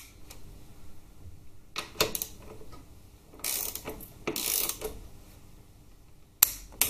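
A socket ratchet clicking in short runs as it tightens the stabiliser link bolts on a Harley-Davidson Twin Cam 88 engine. There are a few sharp clicks about two seconds in and two more near the end.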